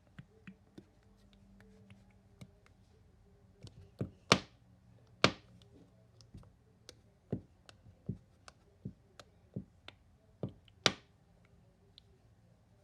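A nail polish bottle being tapped and knocked to get thick polish to come out. Scattered light taps, with three louder thunks about four, five and eleven seconds in.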